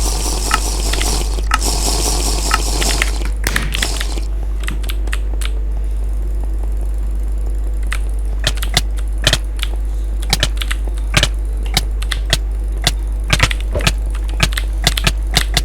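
Irregular sharp clicks or taps, sparse at first and more frequent from about halfway, over a steady low hum; a hiss sounds for the first few seconds.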